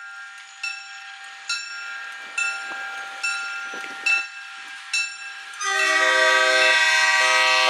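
A bell strikes steadily, a little more than once a second, each ring decaying. About five and a half seconds in, an approaching commuter-rail diesel locomotive sounds its loud multi-note horn and holds it.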